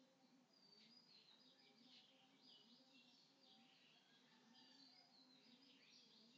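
Near silence, with faint chirps of small birds repeating throughout.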